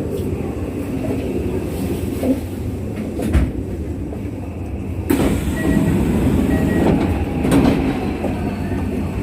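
Running noise of a Kintetsu 1233 series electric train heard from inside the car: a steady rumble with a few sharp knocks of the wheels over rail joints. About five seconds in the noise turns louder and brighter. This set is known for an unusual running noise.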